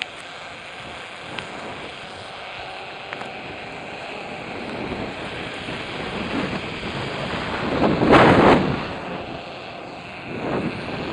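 Wind rushing over the microphone as it speeds along a zipline, building to its loudest about eight seconds in, with a smaller swell near the end.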